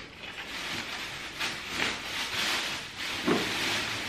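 Thin plastic shopping bags rustling and crinkling as hands rummage through them, in irregular bursts, with a soft dull bump near the end.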